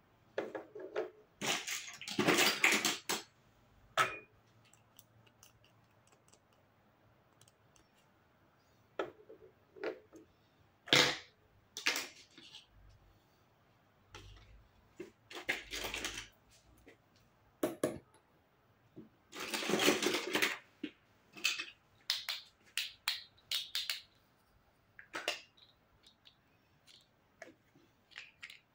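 Plastic toy kitchen pieces (play food, toy plates and cups) being picked up and set down on a table: scattered light clicks and taps, with three louder stretches about a second long near the start, in the middle and about two-thirds through.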